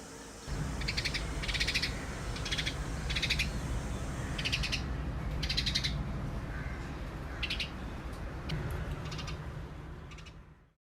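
Bird calling: a series of short, rasping calls, about nine of them at irregular intervals, over a steady low rumble. The sound cuts off abruptly near the end.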